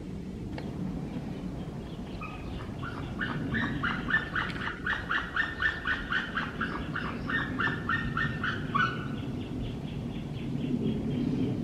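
A bird calling a rapid run of repeated short notes, about four a second, starting about two seconds in and stopping about nine seconds in, over a steady low background rumble.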